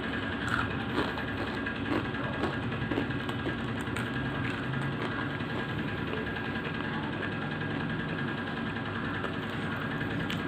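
A steady low motor hum with a few faint clicks over it.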